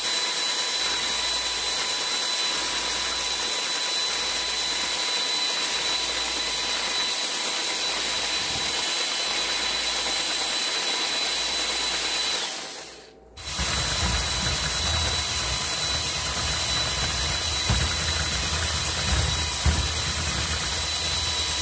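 Scale-model truck's electric motor driving the steel cardan shaft, homemade universal joints and gears: a steady mechanical whirring with a constant high whine. About two-thirds of the way through it cuts out for about a second, then starts again with a heavier, deeper rumble.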